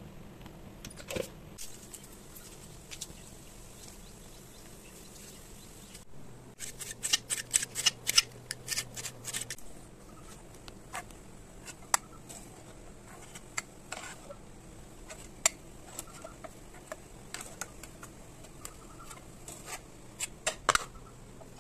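Steel ladle clinking and scraping against a steel kadai while stirring mushrooms in turmeric water, with a quick run of clicks about seven seconds in, scattered taps after, and another short burst near the end.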